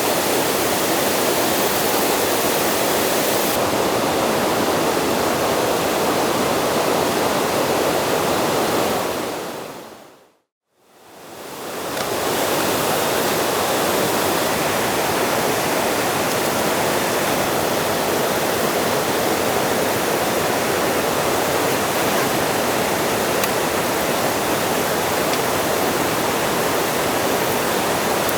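Steady rushing noise, like flowing water or wind. It fades out to silence about ten seconds in and fades back up a second or so later.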